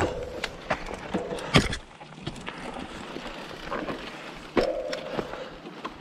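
Mountain bike riding over a dirt trail: tyres rolling on dirt and the bike rattling, with several sharp knocks as it goes over bumps, the loudest about one and a half seconds in.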